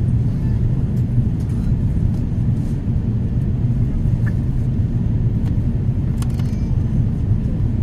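Steady low rumble inside the cabin of an Airbus A350-900 on descent: its Rolls-Royce Trent XWB engines and the airflow over the fuselage. A few faint clicks about six seconds in.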